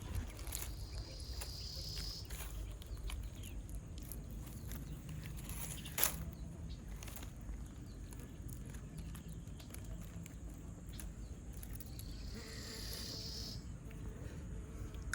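Outdoor ambience with a steady low rumble, an insect buzzing twice for a second or two, faint scattered ticks and one sharp click about six seconds in.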